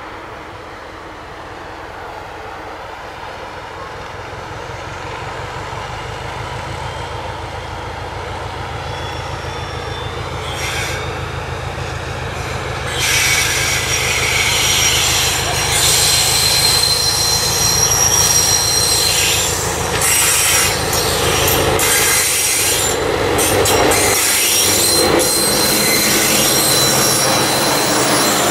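Diesel-hauled passenger train approaching and passing close by: the locomotive's engine rumble grows steadily louder, and about halfway through the noise jumps as the locomotive and then the coaches run past. A high-pitched wheel squeal and the clickety-clack of the coach wheels on the rail joints follow.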